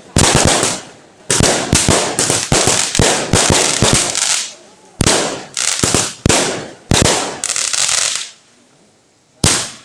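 Firecrackers going off in rapid volleys of sharp bangs and crackles. There is a short lull about four and a half seconds in, the bangs stop a little after eight seconds, and one last bang comes near the end.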